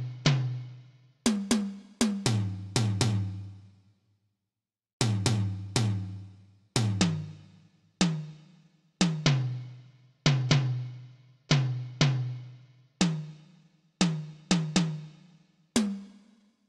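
Tom drums struck one hit at a time in a loose, uneven rhythm, alternating between a higher and a lower drum, each hit ringing briefly with a clear pitch. There is a short pause about four seconds in.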